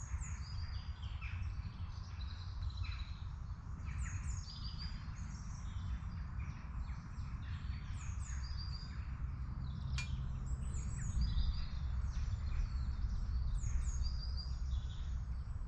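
Woodland birds singing: many short, high chirps and repeated trills from more than one bird, over a steady low rumble. A single sharp click about ten seconds in.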